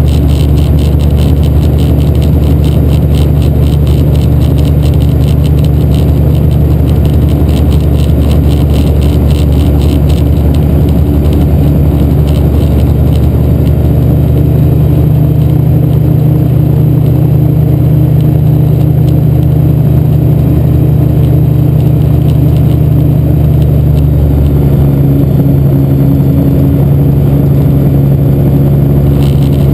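Xenon IV gyroplane's engine and rotor running steadily, heard inside the enclosed cockpit. A fast pulsing flutter rides on the noise over the first third. Near the end the engine note changes with a power adjustment on approach.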